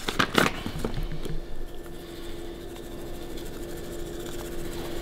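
Hand-twisted pepper mill grinding black peppercorns onto raw meat. A couple of knocks sound near the start, and a faint steady hum runs underneath.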